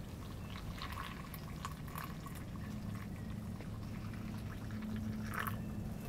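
Hot water poured from a kettle into a metal camping mug, a thin stream splashing and trickling into the liquid, with a low steady hum underneath. The pour stops shortly before the end.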